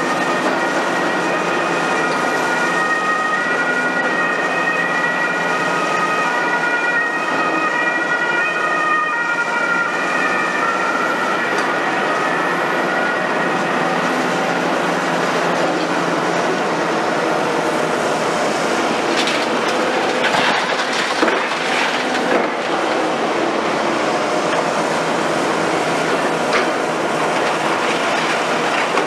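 Liebherr R960 demolition excavator's 250 kW diesel engine and hydraulics running under load while its hydraulic crusher jaws grind into concrete and rebar. High squealing tones sound through the first dozen seconds, and several sharp cracks of concrete breaking come about twenty seconds in and again near the end.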